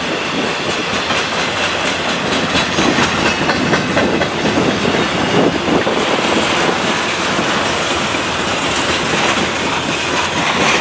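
Freight cars of a BNSF intermodal stack train rolling past close by: a steady, loud rush of steel wheels on rail with repeated clicks of the wheels passing over rail joints.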